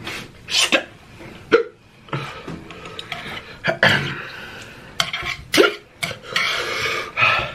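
A person hiccupping several times: short, sharp hiccups spaced irregularly about half a second to a second and a half apart.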